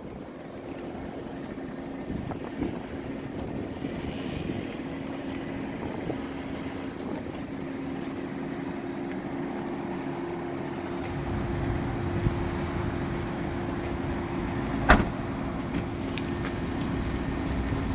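A car engine idling with a steady hum. There is one sharp click about fifteen seconds in.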